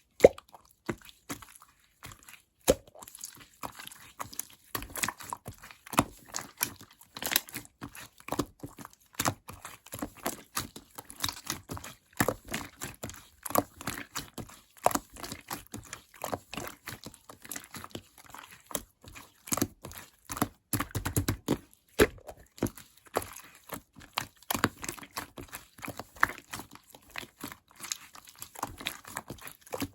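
Clear slime being squished and stretched by hand, giving a steady stream of irregular sticky clicks, pops and squelches with a few louder snaps.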